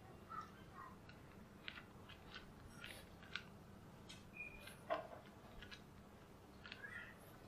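Ginger tabby cats chewing dry kibble: faint, irregular crunching clicks.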